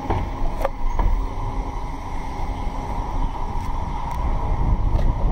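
City bus ride heard from inside: a steady low rumble of engine and road noise, with a few light rattles and clicks.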